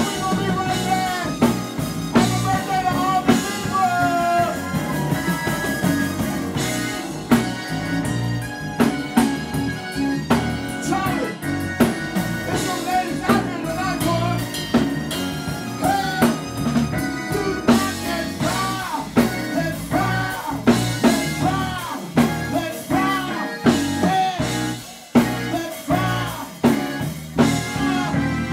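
Live band playing: a man singing into a microphone over a drum kit, keyboard and electric guitar, with a steady, hard-hit drum beat.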